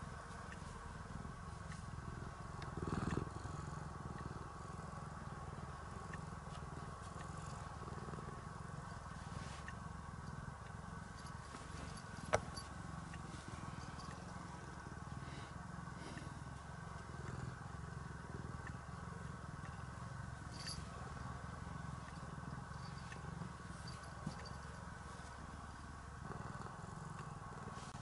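Domestic cat purring steadily close up, with a brief knock about three seconds in and a sharp click near the middle.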